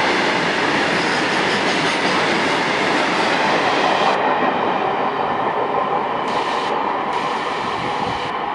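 Freight train of loaded BOXN open coal wagons rolling past at speed, with the steady rumble of wheels running on the rails. It eases slightly near the end.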